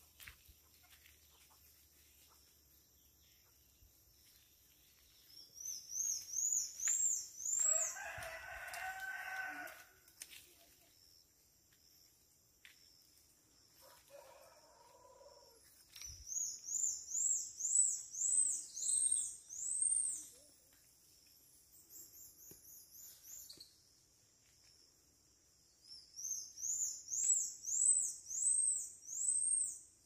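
Three runs of quick, high-pitched chirped notes, each note rising and falling, a few seconds per run. A rooster crows once about eight seconds in, and a shorter, fainter call follows a few seconds later.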